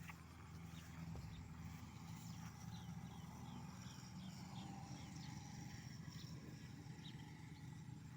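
A bird calling: a quick run of about seven short, high, falling notes a few seconds in, with a few single chirps around it, over a steady low hum.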